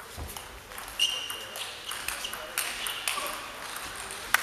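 Table tennis rally: the celluloid ball struck by rackets and bouncing on the table in a run of sharp clicks, the loudest about a second in, with short high squeaks of shoes on the court floor. Another loud click comes near the end.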